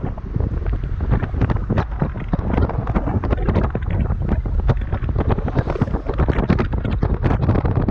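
Wind buffeting the microphone: a loud, steady low rumble broken by many short crackles.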